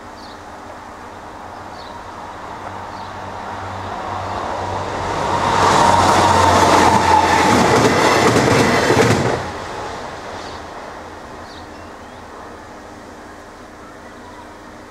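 Passenger train passing over a level crossing. It builds as it approaches, then the wheels clatter over the rails loudly for about four seconds before cutting off sharply as the last coach clears. The sound then fades away.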